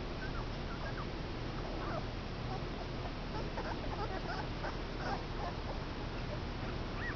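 Two-week-old Komondor puppies squeaking and whimpering in short, high little calls: many in a cluster over the first five seconds and one more near the end, over a steady low background noise.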